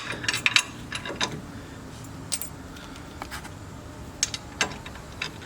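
Loose steel bolts, lock washers and nuts clinking against each other as they are handled: a few sharp metal clicks, a quick cluster in the first second, then single clinks every second or so.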